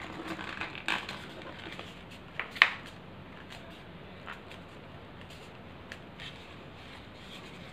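A sheet of paper being folded and creased by hand: light rustling and crinkling with scattered crisp clicks, a sharp snap about two and a half seconds in, then quieter handling.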